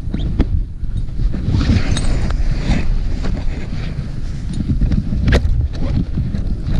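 Wind buffeting a head-mounted action camera's microphone, an uneven low rumble that rises and falls in gusts. Scattered clicks and rustles of parachute gear and dry grass being handled sound over it.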